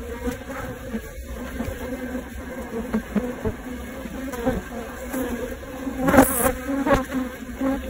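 A cluster of honeybees humming inside a box hive, a steady low drone with the sharper buzz of single bees close to the microphone. A brief louder burst comes about six seconds in.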